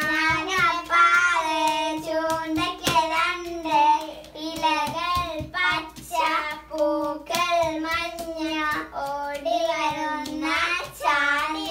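Children singing a game song in a steady sing-song melody, with brief sharp taps scattered through it.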